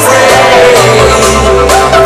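Loud electronic dance music from a DJ set played over a concert PA, with held synth chords; a deep bass note comes in about a second in.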